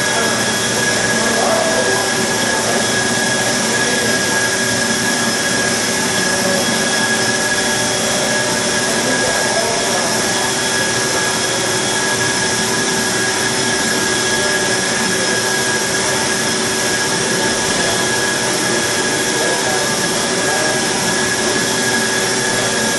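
Cosen automatic bandsaw running steadily partway through a cut in solid stock, with its hydraulic pump on. It is a continuous, even machine noise with a few constant whining tones and no breaks.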